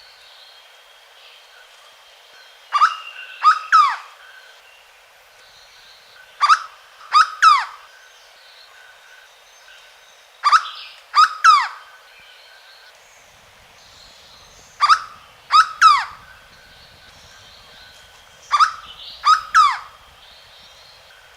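Hooded berryeater (corocoxó) singing: five loud phrases about four seconds apart, each two or three steeply falling whistled notes.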